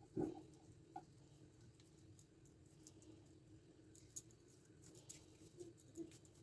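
Faint handling noises of soft wheat dough being coiled into a spiral and pressed on a wooden board: one soft thump just after the start and a few light ticks later, over a low steady hum.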